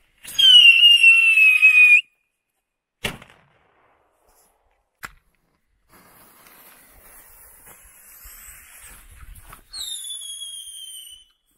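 Whistling fireworks: a loud, shrill whistle falling slightly in pitch for under two seconds that cuts off sharply, then a single sharp bang about a second later. After a faint hiss from a burning fuse, a second shorter whistle starts higher and drops in pitch as the firework rises, then cuts off.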